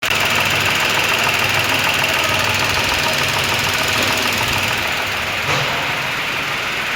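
Nissan Magnite's three-cylinder petrol engine running with a clicking knock from the front of the engine, the "kat kat kat" noise that the mechanic traces to piston slap between the piston and the cylinder wall.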